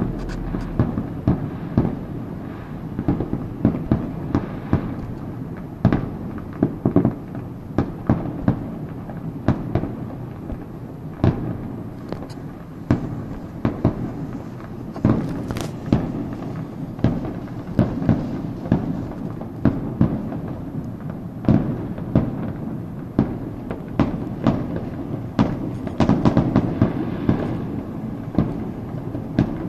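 Fireworks bursting in the distance: an irregular run of bangs, about one or two a second, over a continuous low rumble.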